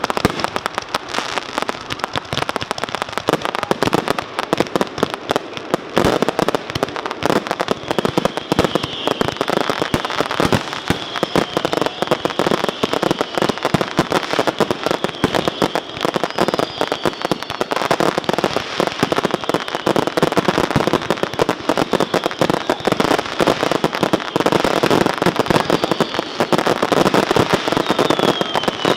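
Fireworks going off in rapid, unbroken succession: a dense stream of bangs, pops and crackle as aerial effects launch from the ground and burst overhead. A few short whistles come and go over it.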